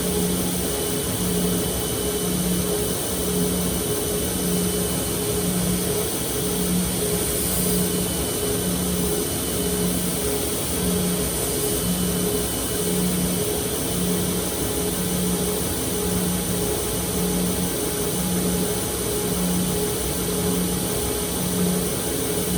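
Powered grinding machine running steadily during a knife regrind. Its low hum pulses about once a second over a constant hiss.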